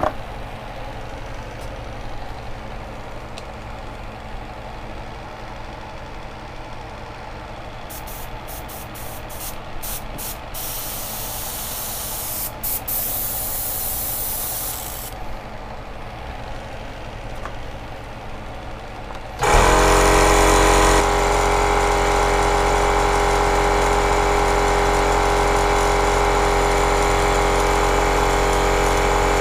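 An airbrush hissing in several short bursts, then one longer spray, as it is flushed clean. About two-thirds of the way in, a louder electric motor switches on suddenly and runs steadily with a hum.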